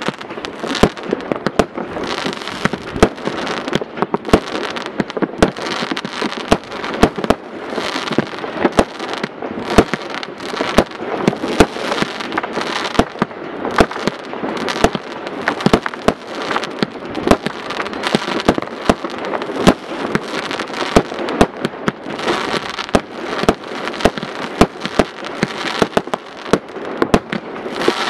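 Many fireworks going off at once: a steady barrage of bangs, pops and crackling with several reports a second and no pause, from aerial bursts and firecrackers.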